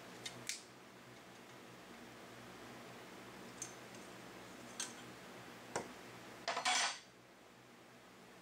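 A few light metallic clinks and taps, scattered over several seconds, then a short rattling scrape near the end, over a low steady hum.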